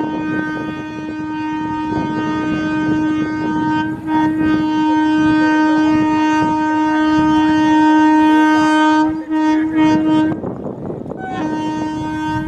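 WAP-7 electric locomotive's horn sounding one long steady blast with two brief flickers, cutting off about ten seconds in, then sounding again briefly near the end. The train's rumble runs underneath.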